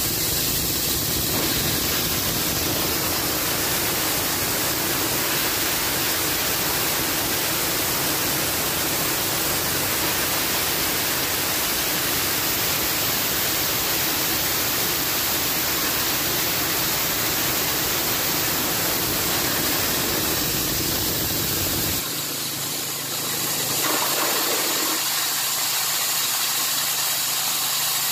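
Fodder chopper driven by a 6.5 HP Matrik single-cylinder petrol engine, running at speed while chopping plant material: a steady, loud, rushing noise of engine and spinning blades. About three-quarters of the way through, the deeper part of the sound drops away.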